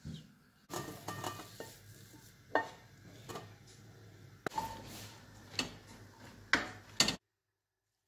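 Wooden spatula scraping and knocking against a frying pan and a metal bowl as cooked diced potatoes are scooped out, with several sharp clinks. The clatter cuts off suddenly near the end.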